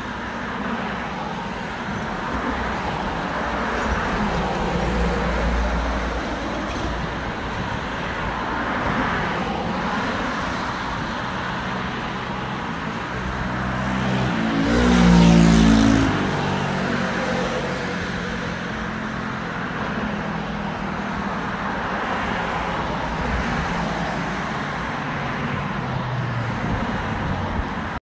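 Steady road traffic noise from cars on a multi-lane road, swelling as vehicles pass. One vehicle goes by close and loud about halfway through.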